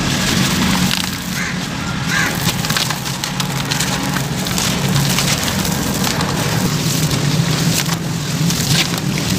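Hands crushing and crumbling dry sand-cement lumps, the grit and gravel crackling and crunching as they break and fall into a plastic basin, with many small sharp clicks. A steady low hum runs underneath.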